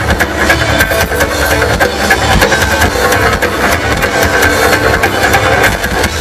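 Two amplified electric cellos playing a driving rock arrangement over a drum kit keeping a steady, hard-hit beat, loud live concert sound.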